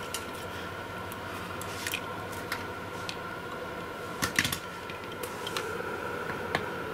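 Scattered light clicks and taps of small handling, with a quick cluster of them about four seconds in, over a steady faint hiss and thin whine.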